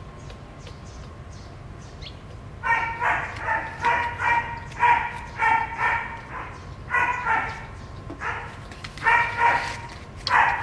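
Baby macaque crying: a rapid series of short, high-pitched calls starting about three seconds in and running on in quick bursts.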